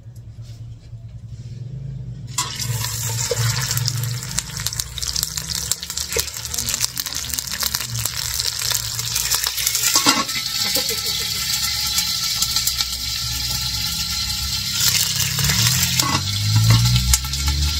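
Raw chicken pieces sizzling as they fry in a glazed clay cazuela. The sizzle starts suddenly a couple of seconds in and runs on steadily, with a few knocks of handling, around the middle and near the end.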